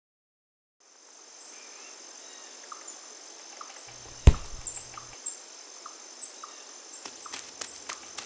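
Crickets trilling steadily as an outdoor night ambience, fading in after a moment of silence, with faint chirps repeating about every half second. A single sharp knock with a low thud about four seconds in is the loudest sound, and a run of light tapping clicks begins near the end.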